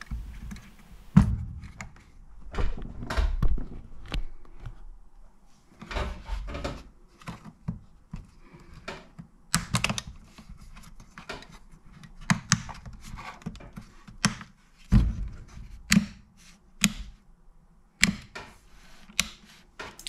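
Plastic parts of a Henry vacuum's on/off switch being handled and snapped back together, giving irregular sharp clicks and dull knocks, with the clicks coming thicker in the second half.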